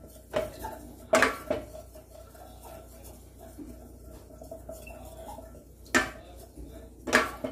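A wooden spatula knocking and scraping against the bottom and side of a stainless steel pot as a little oil is spread around. There are a few sharp clacks: one early, two about a second in, and two near the end.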